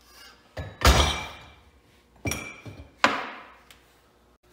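Knocks and clinks of a Model T's steel drive shaft tube assembly being set down on a wooden workbench and into a holding stand: four knocks, the loudest about a second in, some with a short metallic ring.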